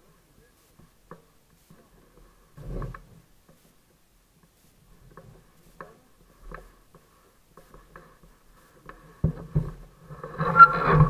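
Faint, scattered clicks and rustles of a rider handling a fat bike and moving in winter clothing, with a dull knock about three seconds in. Near the end come louder knocks and handling noise over a steady low hum.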